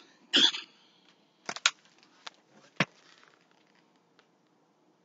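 A hardcover picture book being picked up and held open: a short rustle, then a few sharp taps and clicks as it is handled.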